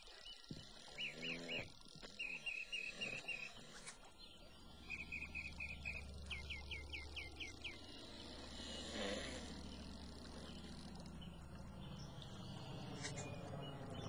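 Bird calls, four short runs of quick chirps, over a calm outdoor hush. A low drone of an approaching twin-engine propeller plane builds underneath and grows steadily louder toward the end.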